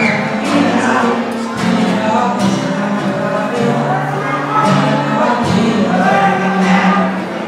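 A man singing into a microphone, amplified, over a strummed acoustic guitar. He holds long, low notes that change every second or so.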